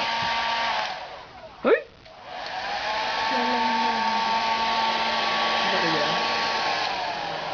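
Electric hair dryer blowing, then switched off about a second in, its motor whine falling away; a brief sharp rising squeak; then switched back on, the whine rising and running steadily before dropping to a lower pitch near the end.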